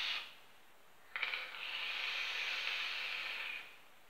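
Hissing draws through a HellVape Dead Rabbit dripping atomizer as its coil is fired. One draw ends just after the start. A second steady hiss starts suddenly about a second in and lasts about two and a half seconds.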